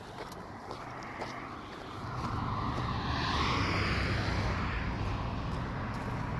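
A vehicle passing by, its rushing noise building about two seconds in, peaking in the middle and easing off over a steady low rumble.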